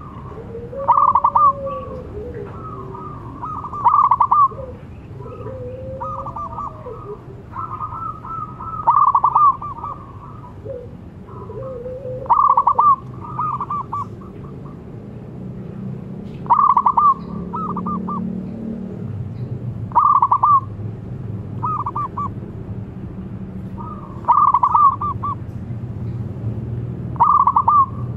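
Zebra doves (perkutut) cooing: loud rippling phrases come about every three to four seconds, with softer, lower gliding calls between them in the first half.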